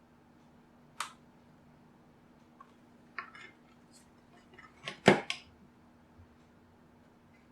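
Scattered sharp clicks and clacks of hand tools against the speaker's plastic casing and parts as it is pried apart. The loudest is a snap about five seconds in.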